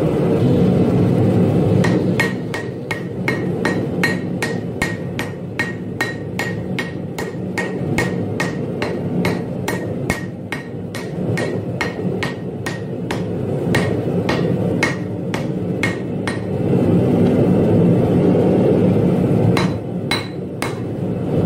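Hand hammer striking a hot laminated steel blade on an anvil in a steady rhythm of about two to three blows a second, each with a short metallic ring, over the continuous roar of the forge. The hammering stops about three-quarters of the way through and a few more blows follow near the end.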